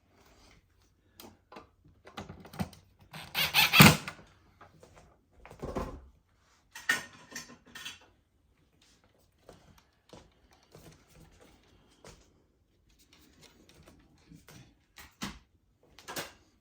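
Irregular clicks, knocks and rattles of refrigerator ice-and-water dispenser parts being handled and fitted by hand, loudest in a cluster of knocks about three to four seconds in.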